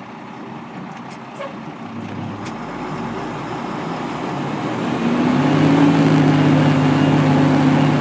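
Fire engine under way, its engine and road noise building steadily. About five seconds in, a louder, steady low blare with two held tones joins and lasts to the end.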